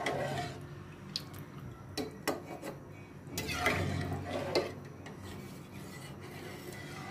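A spoon knocking and scraping now and then against the side of a pot of thick lentil haleem as it is stirred. A few scattered clicks sit over a low steady hum.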